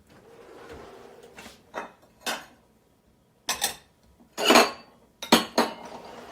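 Kitchen dishes and utensils clinking and clattering as they are handled and set down: a string of sharp knocks, the loudest about four and a half seconds in.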